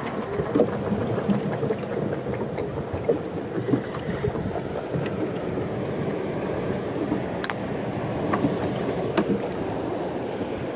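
Steady low rumble and wash of a small wooden boat on the water, with a few light clicks.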